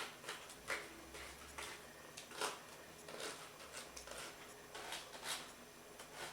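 Faint, irregular scrapes and light clicks of a utensil scraping puréed liver off a double-wire strainer.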